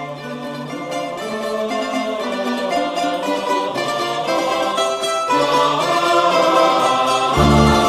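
Background music led by bright plucked strings playing a melody; the deep bass drops out and comes back in strongly near the end.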